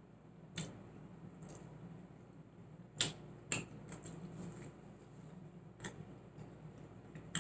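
Eating sounds: quiet chewing broken by several sharp, wet mouth clicks and smacks, the loudest about three seconds in.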